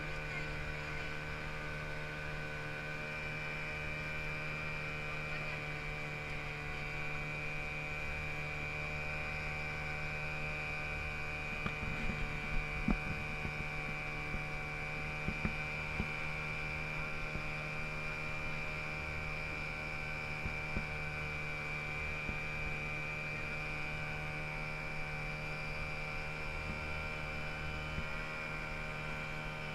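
Steady machine drone with several constant tones, with a few light clicks or knocks partway through.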